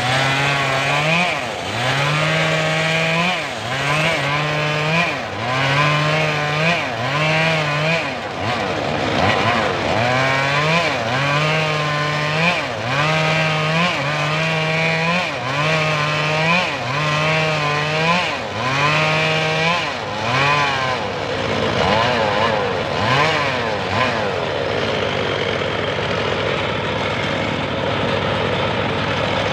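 Engine of a homemade saw rig running under load. For about the first twenty seconds its pitch repeatedly dips and recovers, roughly every second and a half, then it settles into a steadier, slightly wavering run.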